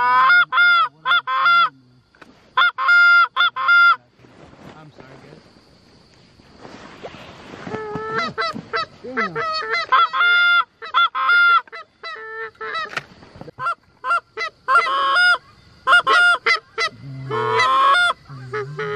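Canada goose honks and clucks in quick runs of short notes, with a quieter stretch a few seconds in; a faint steady high tone runs underneath.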